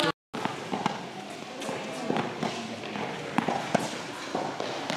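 Tennis ball being hit and bouncing on an indoor hard court during a mini-tennis rally: a scattered series of sharp knocks, with footsteps, in a reverberant hall. The sound cuts out briefly at the very start.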